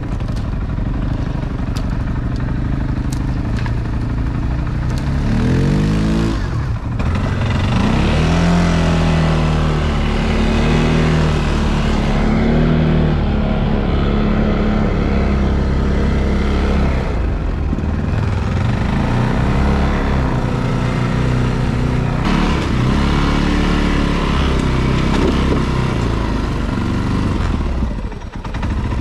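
ATV engine running while riding. Its pitch climbs steeply about six seconds in, then rises and falls as the throttle changes, with a brief drop in level near the end.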